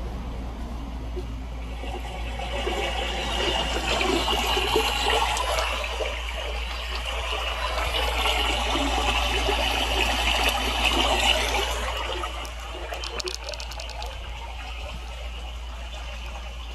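Recorded water-sound effect, a rushing, splashing stream of water, played back through a small speaker; it swells about two seconds in and eases off near the end, over a steady low hum.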